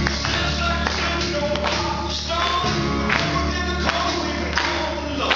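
Rock'n'roll song with singing over a steady beat, about two beats a second.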